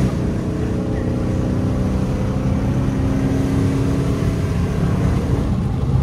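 Chrysler 300C's 5.7 L HEMI V8 running steadily while cruising, heard from inside the cabin: an even, low engine drone with no rise or fall in pitch.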